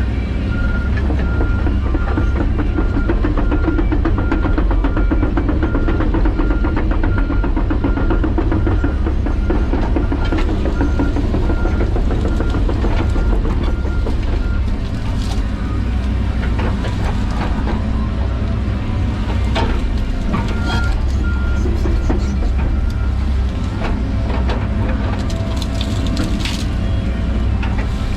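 John Deere 130G excavator's diesel engine running steadily, with a short high beep repeating about every two-thirds of a second through roughly the first half and again briefly later. Sharp cracks and snaps come through over the engine in the second half.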